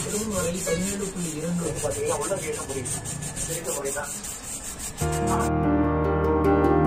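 Hands sanding and rubbing down the painted steel fuel tank and mudguard of a Yamaha RX100, with repeated scratchy scrubbing strokes. About five seconds in, the rubbing gives way abruptly to louder piano music.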